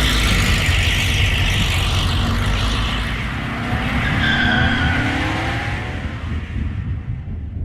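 A car engine revving with tyres squealing, loud and continuous, with pitches that slide up and down; it starts to fade near the end.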